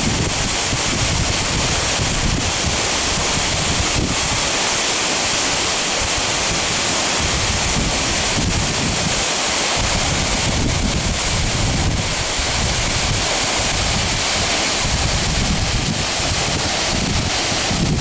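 Waterfall pouring into a rock pool: a steady, loud rush of falling water, with wind buffeting the microphone in uneven low rumbles.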